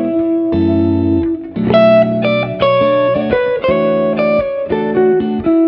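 Guitar-led background music, with chords and notes changing at a steady pace.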